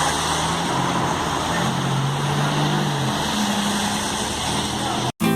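Street traffic noise with a motor vehicle's engine hum shifting in pitch. It cuts off abruptly near the end, and guitar music starts.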